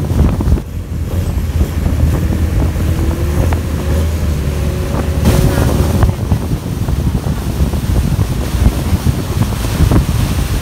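Motorboat engine running steadily under way, with wind buffeting the microphone and water rushing along the hull.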